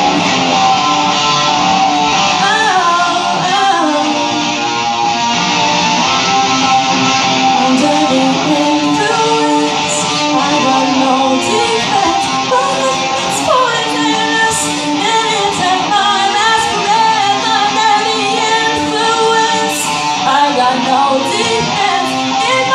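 Live band music: an electric guitar played with a woman singing over it.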